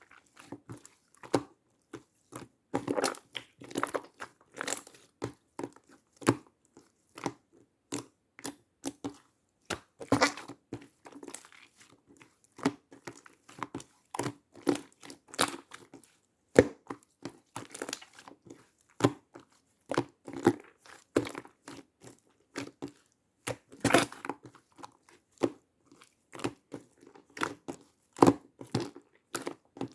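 Slime being squished, poked and stretched by hand, making a dense run of irregular sticky clicks, pops and crackles.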